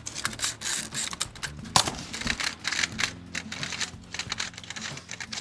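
Rapid, irregular clicking and crinkling, like hands handling something light such as plastic wrapping.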